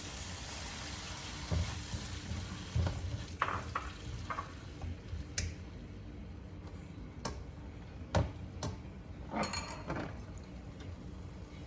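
Ground beef stir-frying in a pan with a steady sizzle that eases after the first couple of seconds, once warm water has been added. A utensil knocks and scrapes against the pan at irregular moments while the food is stirred.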